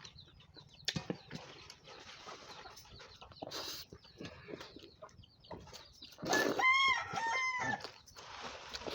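Rooster crowing once, about six seconds in: a single call lasting about a second and a half that rises and falls in pitch.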